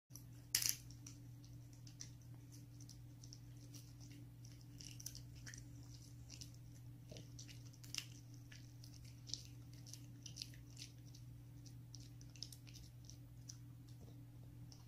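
French bulldog gnawing and chewing a dried mini pork-trotter treat: scattered small crunches and clicks, with one sharper snap about half a second in, over a steady low hum.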